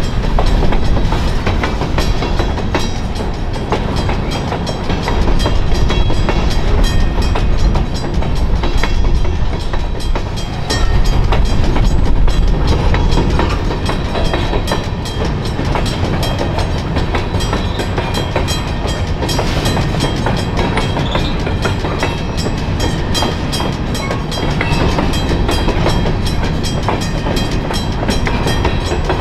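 Freight train of covered hopper cars rolling past at a grade crossing, wheels clacking over the rail joints, while the crossing's teardrop bells ring.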